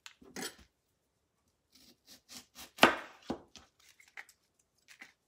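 Dry onion skin crackling as it is peeled off, then a chef's knife cutting through an onion onto a cutting mat on the counter: a run of irregular sharp knocks, the loudest about three seconds in.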